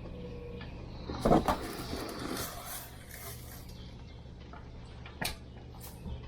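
Two sharp knocks about a second in, followed by rustling, then two more sharp clicks near the end, over a steady low hum.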